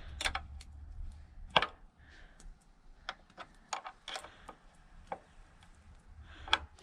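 Irregular light clicks and metallic taps of hand tools on a small engine's carburetor as the float bowl is worked loose, with one sharper knock about one and a half seconds in.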